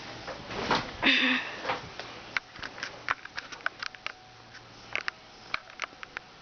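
SMC UB42 ceiling fan running with a steady low whoosh. A short, loud breathy noise about a second in, then scattered light clicks.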